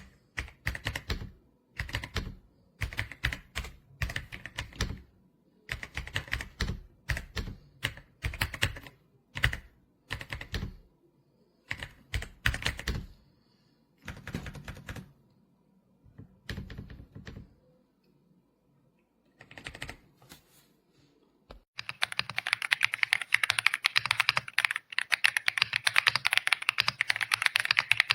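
Typing on a Royal Kludge R75 gasket-mounted mechanical keyboard: short flurries of keystrokes separated by brief pauses. About two-thirds of the way through, it changes to fast, continuous, brighter-sounding typing.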